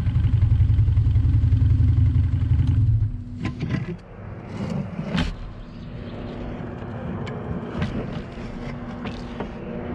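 Homemade off-road buggy's engine rumbling while stopped, then dropping away suddenly about three seconds in. After that come scattered clicks and knocks over a faint steady hum.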